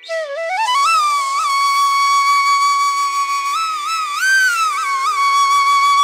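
Background flute music: a flute enters with a rising, sliding phrase, holds one long note with small ornaments, then bends up and back down before settling again, over a steady low drone.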